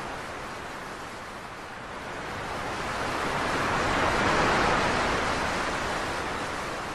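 Rushing noise of ocean surf: one wave swells to a peak about four seconds in, then falls away.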